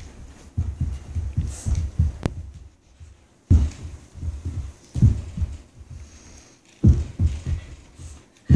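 Dull, irregular thuds of a child stomping barefoot on a carpeted floor while dancing, with three heavier stomps in the second half, a second and a half or so apart.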